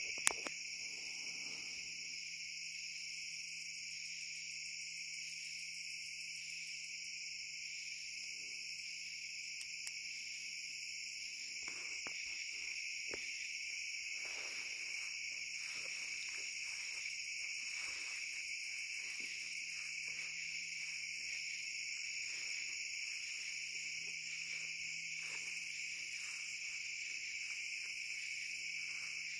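Night insect chorus: a steady, high-pitched, layered trilling of crickets with a faint even pulse. A single sharp click comes just after the start, and faint irregular rustles appear from about twelve seconds in.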